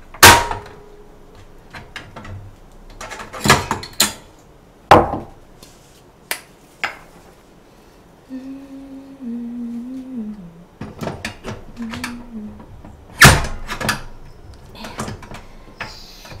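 Sharp clacks and knocks of someone handling a portable butane gas stove while swapping in a new gas canister, the loudest knock near the end. Partway through, a short tune is hummed for a few seconds.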